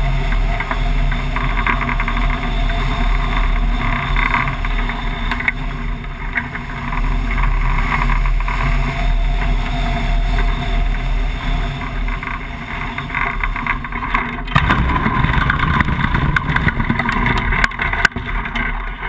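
Steady rush of wind over a camera mounted on a tandem hang glider's wing as it glides low over a field. Some fourteen and a half seconds in, the sound turns rougher as the glider touches down and slides across the grass on its basetube wheels.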